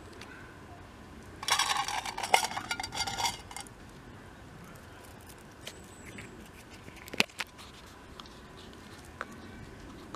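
Metal pieces of a camping cook kit (tin-can pot and spoon) clinking and rattling together as they are handled, for about two seconds, followed a few seconds later by a single sharp click.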